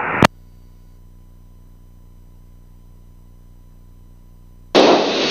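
Aircraft radio/intercom feed between transmissions: a transmission cuts off with a click, then a steady low electrical hum with a faint steady tone. Near the end comes a short burst of radio static hiss, under a second long, as a station keys up.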